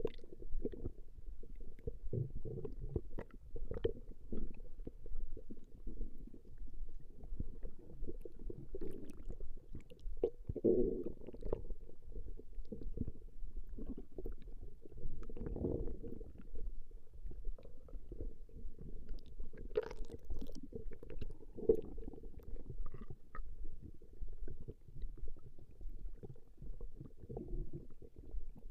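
A woman's stomach growling: a steady run of irregular, low gurgles and rumbles, with a few louder gurgles scattered through.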